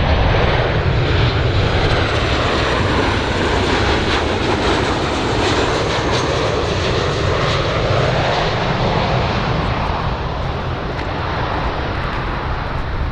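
Boeing 737-800 business jet's twin turbofan engines on final approach to landing: a loud, steady jet roar with a faint high fan whine in the first few seconds.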